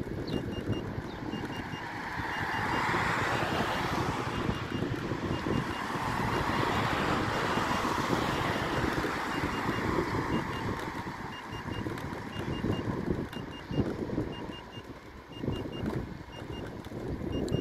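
Electric unicycle's high-pitched warning beeps, repeating in quick groups of two or three about once a second, over wind rumble on the microphone from riding. Traffic on the adjacent road swells up twice.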